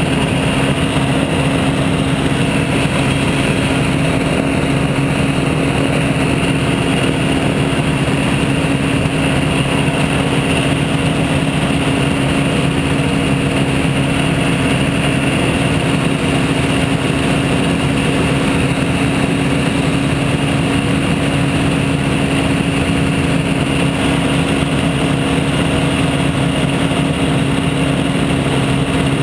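Weight-shift microlight trike's engine and propeller running steadily on the ground while warming up, heard close to the microphone as a constant, even drone.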